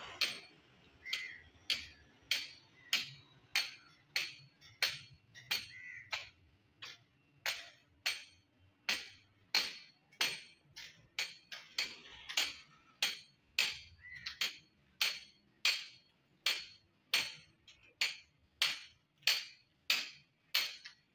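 Hand hammer striking a chisel to chip old plaster off a wall, in a steady rhythm of about three blows every two seconds.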